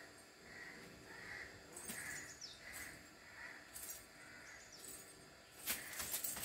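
A bird repeating a short call over and over, about three calls every two seconds, faint in the open air. A few sharp clicks come near the end.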